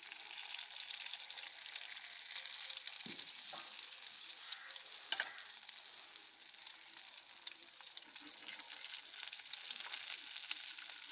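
An egg frying on a flat iron griddle (tawa), sizzling steadily with fine crackles, and a couple of brief knocks near the middle.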